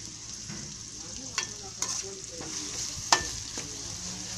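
Sliced onions and green chillies sizzling as they fry in an aluminium pan, stirred with a steel slotted skimmer that clinks against the pan a few times, loudest about three seconds in.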